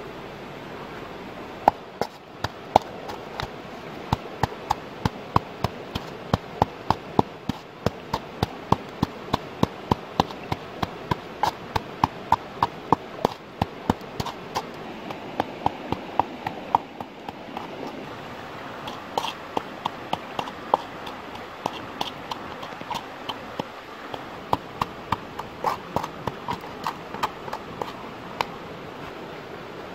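Stone pestle pounding chilies and garlic in a coconut-shell bowl: sharp, rhythmic knocks at about two to three a second, with a couple of brief pauses midway.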